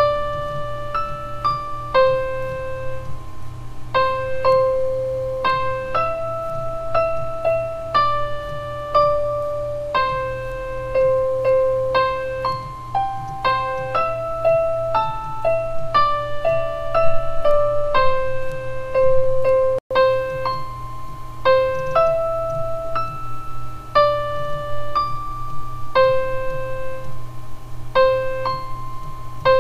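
Slow, simple single-note keyboard melody in an electric-piano sound, each note held about half a second to a second, recorded through a cheap microphone with a steady low hum underneath. The sound drops out for an instant about twenty seconds in.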